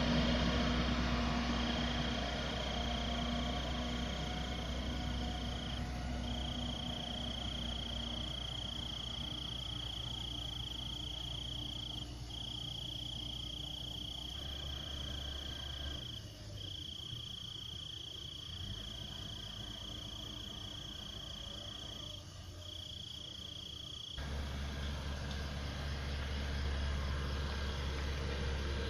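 The Case 580M backhoe's diesel engine runs low and steady, with a single high-pitched tone held for several seconds at a time with brief breaks over it. The tone stops about 24 seconds in, and the engine sound grows fuller.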